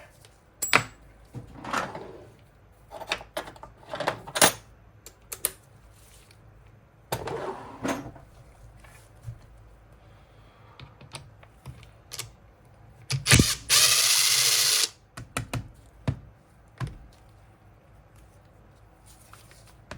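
Tool work on a chainsaw's anti-vibration mount bolts: scattered clicks and knocks of a 4 mm hex tool and metal parts against the saw's housing, with one loud, steady, hiss-like burst about a second long two-thirds of the way through.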